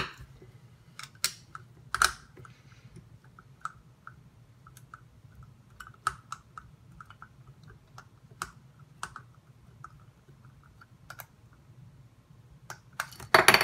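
Flat-blade screwdriver prying a clear plastic diffuser off an LED bulb's circuit board: a run of small, irregular plastic clicks and scrapes with a few sharper snaps, growing into a denser crackle near the end.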